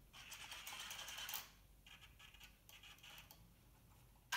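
Faint whirring and clicking from the WLtoys 18429 RC buggy's steering servo and the handled car, fading to near silence after about a second and a half. Right at the end its electric drive motor suddenly starts up, spinning the lifted wheels on a throttle test.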